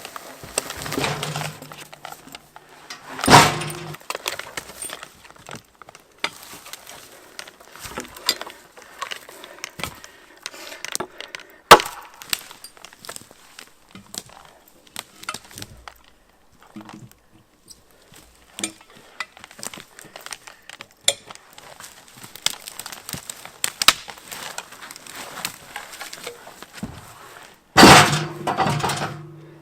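Logs and a steel log-handling tool knocking and clanking as wet logs are hauled and loaded. The knocks are irregular, with three much louder impacts: a few seconds in, near the middle, and near the end, where the last one rings briefly.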